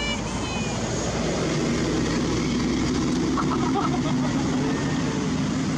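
A motor vehicle engine running close by: a steady low drone that swells slightly. There is a brief high-pitched call near the start and a few short high chirps about three and a half seconds in.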